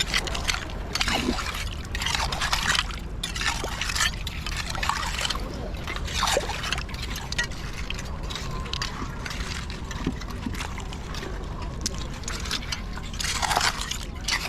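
Wet tidal-flat mud and shallow water sloshing and scraping in irregular bursts as clams are dug out, over a steady low rumble.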